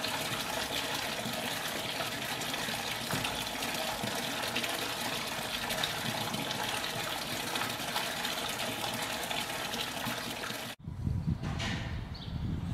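Steady running and splashing water from a small stone statue fountain. About eleven seconds in it cuts off suddenly, giving way to a low outdoor rumble.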